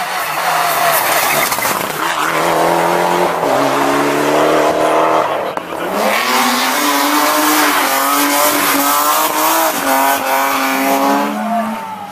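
Rally cars at full throttle on a tarmac stage. First a Mitsubishi Lancer Evo X accelerates, its engine pitch climbing in steps through gear changes. After a cut about six seconds in, a BMW E36 holds high revs through a corner, the pitch wavering as the driver works the throttle.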